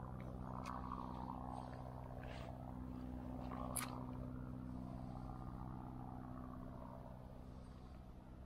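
A steady low engine hum that slowly fades, with one sharp click about four seconds in.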